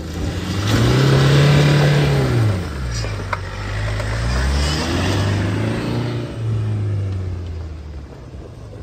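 Tata Safari Storme's diesel engine revving as the SUV pulls through soft sand. The revs climb about a second in, drop away after two and a half seconds, then rise again and hold before fading near the end.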